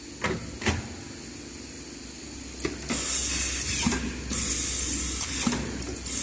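Automatic screw-fastening machine at work: two sharp clicks, then about halfway through its electric screwdriver runs in bursts of about a second each with a high hiss, driving screws.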